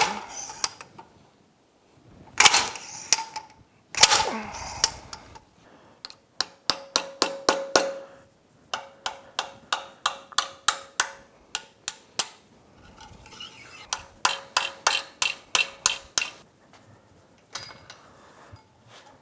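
Slide-hammer puller striking against the corroded input shaft housing of an outboard lower unit: a few heavy, ringing metal blows about every second and a half. Then three runs of quick hammer taps on a chisel set against the housing, about five a second, each strike ringing, as the seized housing is worked loose.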